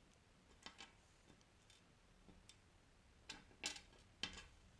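Near silence broken by a few faint, short clicks and taps of the drone's plastic body being handled.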